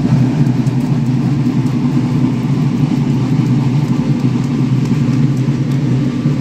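Drums of the march's drum corps playing a continuous roll, starting suddenly and holding steady.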